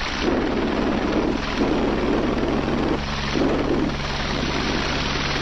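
Police rescue helicopter hovering low overhead during a hoist rescue: steady rotor and turbine sound, with a rushing rotor wash that swells and dips every second or so.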